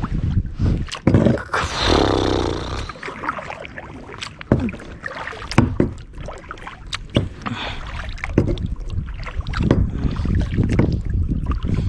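Paddle strokes of a small boat on the sea: irregular splashes and sloshes of water against the paddle and hull, with wind rumbling on the microphone, strongest in the first couple of seconds.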